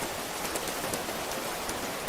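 Steady rain falling, an even hiss with the sharp ticks of individual drops striking a surface.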